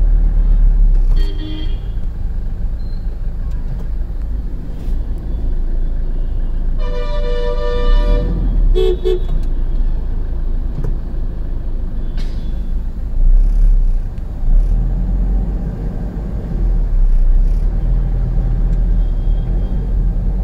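Vehicle horns honking in slow traffic, heard from inside a car over a steady low rumble: a short toot about a second in, one long blast of over a second around seven seconds, and a quick double toot just after it.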